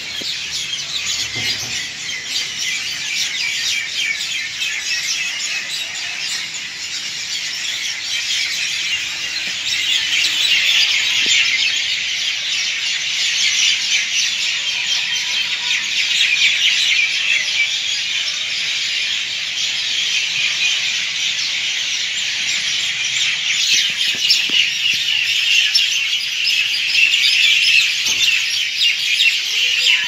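A dense, continuous evening chorus of a large flock of birds, many overlapping high chirps and squeaky calls at once. It swells a little louder about a third of the way in.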